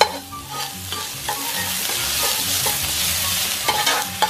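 Minced ginger sizzling in hot oil, with a steady hiss throughout, while a metal ladle stirs it around the pan, knocking against the pan at the start and a few times near the end.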